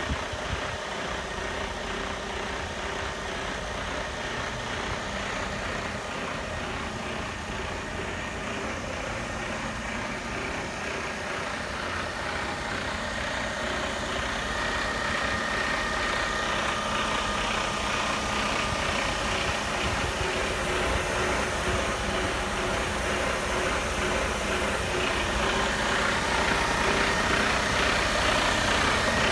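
Mercedes-Benz Arocs 3343 truck's diesel engine idling steadily, growing louder over the second half.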